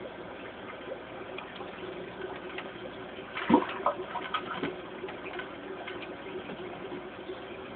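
Steady running water of an aquarium's filter and pump, with a sudden splash and a few smaller splashes about three and a half seconds in as a fish strikes at the water surface.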